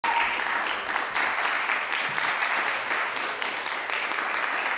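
Audience applauding, a steady dense clapping that starts abruptly.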